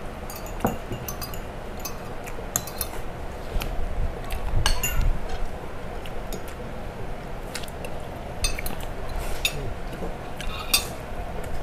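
Cutlery clinking against plates and dishes now and then: the small scattered knocks of people eating at the table.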